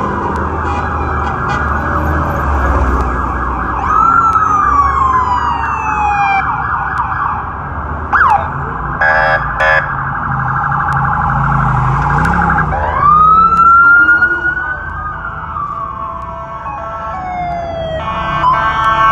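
Electronic siren wailing in long rising and falling sweeps, with a quick yelp about eight seconds in and a short pulsed blast just after, over the low running of off-road race vehicles' engines as they drive slowly past.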